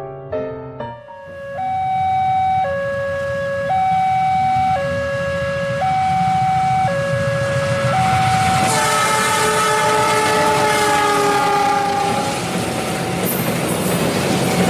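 Train horn sounding over the rumble of a running train. First two notes alternate high and low, each held about a second, for about seven seconds. Then, about nine seconds in, a chord of several notes sounds together and falls slightly in pitch.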